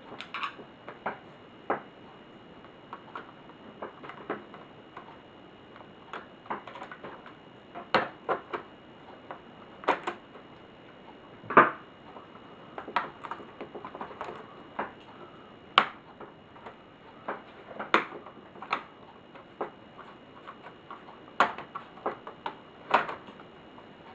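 Irregular clicks, taps and knocks of laptop parts and tools being handled while the laptop is taken apart, with no steady rhythm and one louder knock about halfway through. A faint steady high-pitched whine runs underneath.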